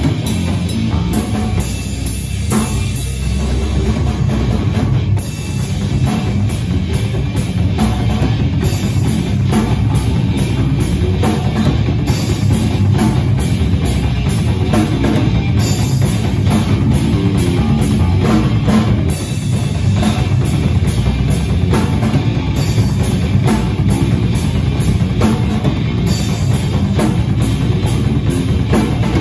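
Rock band playing live: a drum kit keeps a steady, busy beat with a prominent bass drum, under guitar.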